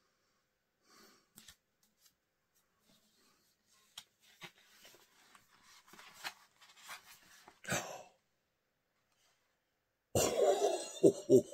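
A man coughing hard near the end: one loud burst followed by several quick coughs. Before it there are only faint small knocks and handling noises.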